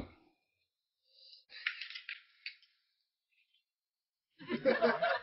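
Mostly silence. About a second and a half in there is a second of faint crackling from food being bitten and chewed, and near the end a person starts chuckling.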